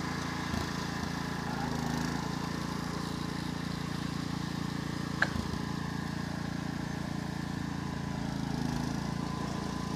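Wheel Horse riding lawn mower's engine running steadily, with one short sharp click about five seconds in.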